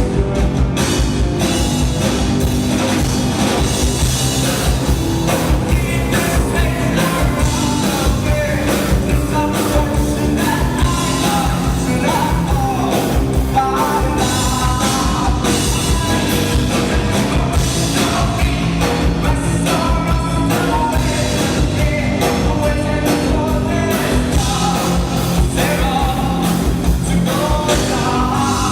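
A rock band playing live: a lead vocal sung over a steady drum beat and the full band.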